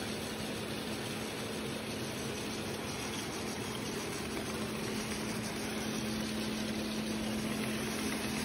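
Automatic folder gluer (Suga Seisakusho HSG-PB-4C-1100) running steadily: a continuous mechanical whir of its belts and rollers feeding folding cartons through, with a steady low hum.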